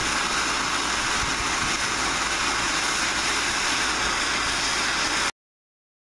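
MAPP gas hand torch burning with its flame played on a padlock body, a steady hiss that cuts off abruptly a little after five seconds in.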